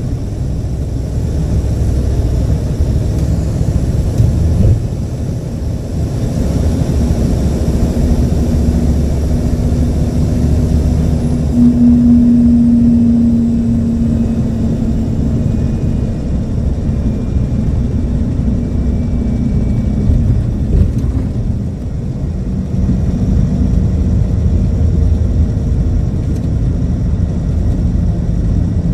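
Scania DC09 five-cylinder diesel engine running with a steady, deep rumble. A humming tone swells about twelve seconds in and fades a few seconds later.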